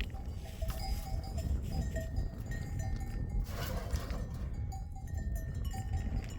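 Livestock bells clinking irregularly, many short ringing notes from a flock, over a steady low rumble.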